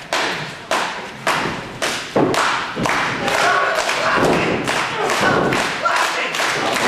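Sharp thuds and slaps from a wrestling match, roughly two a second, over a shouting crowd.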